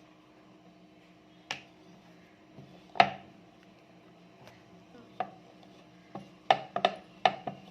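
Rolling pin knocking and clattering against a rolling board while chapati dough is rolled out thin: scattered sharp knocks, the loudest about three seconds in and a quick run of them near the end.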